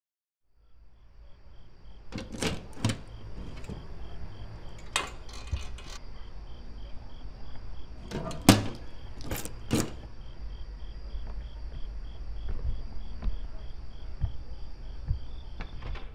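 Metal apartment mailbox door and lock clicking and clacking as a letter is taken out, with the sharpest clack about halfway through. Underneath runs a low rumble and a faint high chirp repeating evenly, about three times a second.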